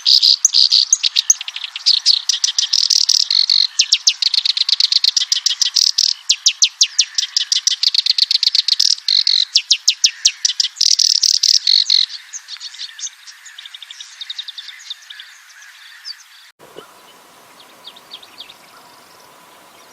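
Black-browed reed warbler singing a rapid, chattering song of fast repeated notes, loud for about twelve seconds and then fainter. After an abrupt change about three-quarters through, only a few faint notes come over background hiss.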